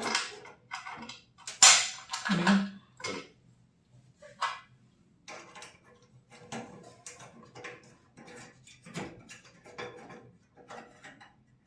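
Irregular clatter and clicks of small hard objects being handled, with one louder knock about two seconds in, over a faint low hum.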